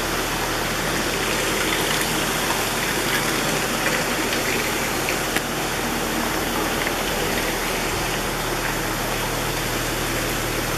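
Large stationary engine running steadily in the engine house: a dense, even mechanical rush with a constant low hum underneath.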